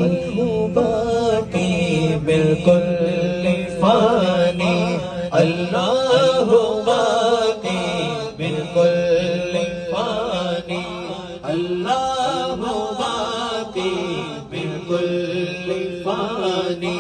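Male voices singing an Urdu naat (devotional chant) into microphones over a sound system, a melismatic melody that glides up and down over a steady, low held note.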